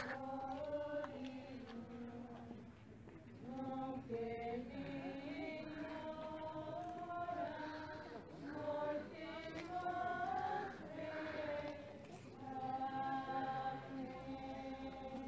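Cloistered nuns singing a slow hymn to the Virgin Mary, a melody of long held notes moving step by step.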